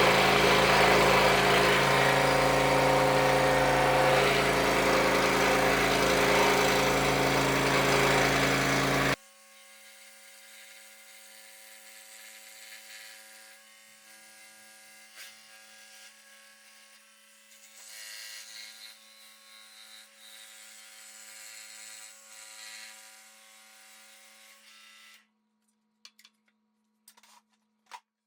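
Scroll saw running and cutting through wood, loud and steady, stopping abruptly about nine seconds in. After that only a faint steady hum and a few small handling sounds remain, with a few clicks near the end.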